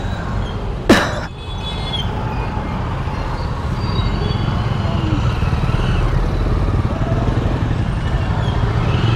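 Motorcycle engine running with street traffic around it, a steady low hum. A single sharp knock about a second in is the loudest sound.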